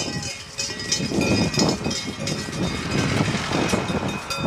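A car driving slowly past at close range, its engine and tyre noise growing louder about a second in.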